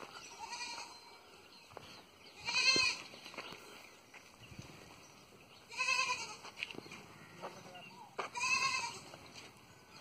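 Goats bleating: three loud, high-pitched bleats a few seconds apart, with a fainter one just before.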